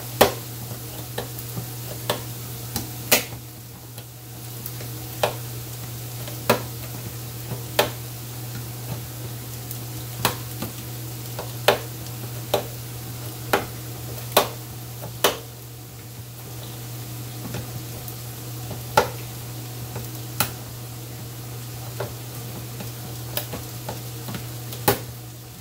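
A can opener working its way around a can of tomato pasta sauce, with sharp clicks at uneven intervals of about one to two seconds. It is an opener that she says no longer works well. A steady low hum and the sizzle of sauce cooking in a pan run underneath.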